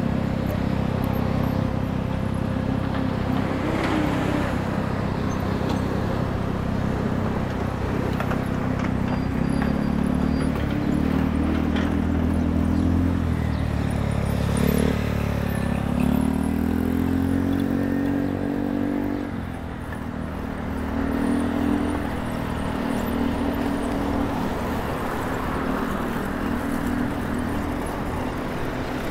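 City street traffic heard from a moving bicycle, with a steady low wind rumble on the camera microphone. From about nine seconds in, a nearby motor vehicle's engine runs alongside and rises in pitch as it speeds up, then drops out at about twenty seconds.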